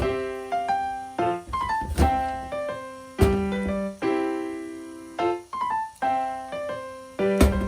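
Background piano music: a gentle melody with chords, each note struck and dying away.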